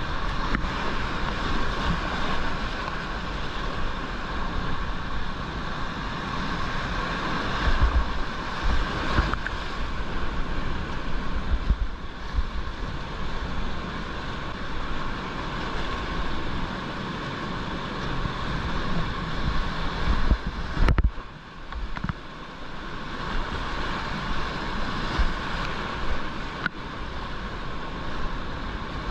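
Rushing whitewater rapids close around a kayak, a steady loud rush of water with heavy low thumps from waves and the boat hitting the current. The rush drops briefly about two-thirds of the way through, then picks up again.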